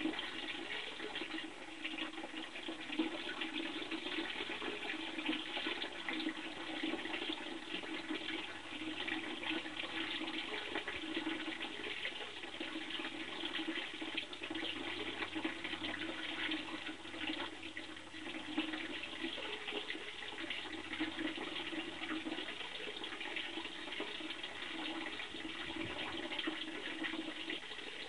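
Water splashing and trickling steadily into a small garden koi pond, an even rushing sound with a fine crackle throughout.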